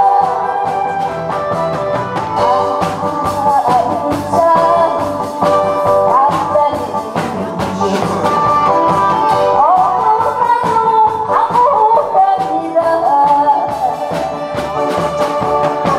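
A woman singing into a microphone over instrumental accompaniment with a steady drum beat.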